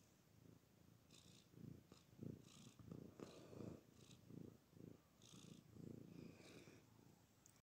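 Domestic cat purring while it dozes, faint and close up, in soft rhythmic pulses about twice a second. The sound breaks off suddenly near the end.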